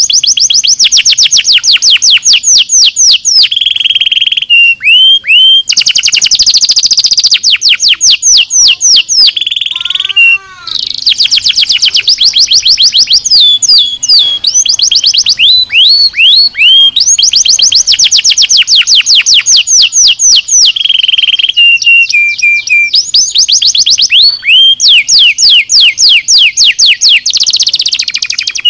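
Domestic canary singing a long, loud song of rapid trills and rolling repeated notes, switching between high fast trills and lower rolls. About ten seconds in there is a brief break with a short run of lower falling notes.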